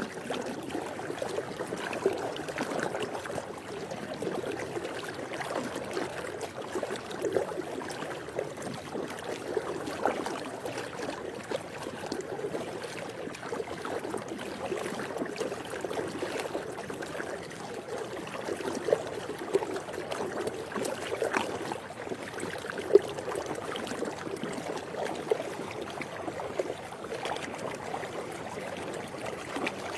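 Swimming pool water moving and lapping steadily, with many small irregular splashes.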